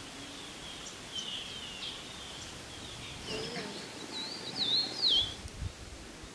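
Birds calling over a steady outdoor hiss: scattered short chirps and whistles, with a louder run of warbling notes that slide up and down about four and a half to five seconds in. A brief low rumble follows.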